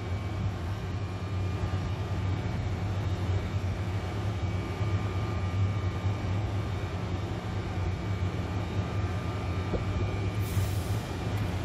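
Steady low hum of a passenger train standing at the platform, with a short hiss of air about ten seconds in.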